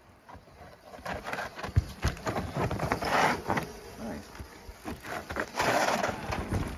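Mountain bike rolling down rock and rooty dirt: tyre noise with a run of knocks and rattles from the bike, louder about three seconds in and again near the end.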